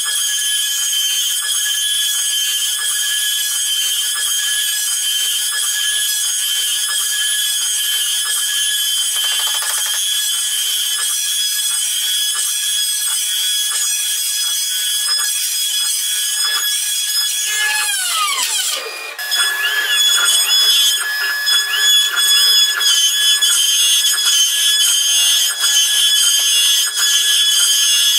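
CNC router spindle whining steadily at a high pitch as its bit cuts into an oak beam. About 18 seconds in, the whine drops in pitch, then comes back louder with a wavering pitch.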